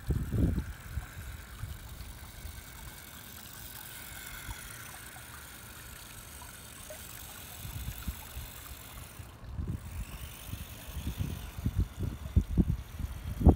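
Wind gusting on the microphone in low rumbles, dying down for a few seconds and building again toward the end, over a faint steady hum and light water movement.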